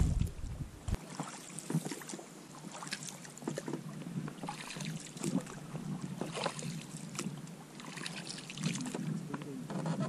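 Small waves lapping and slapping irregularly against the side of an inflatable PVC boat, with wind buffeting the microphone for about the first second.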